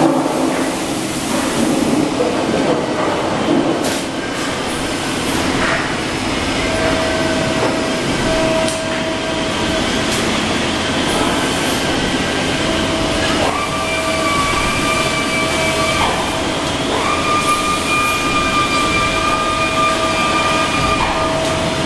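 Steady machinery noise of a sheet-metal press brake and workshop. In the second half a steady whine sets in and cuts off several times, with a few sharp clicks earlier on.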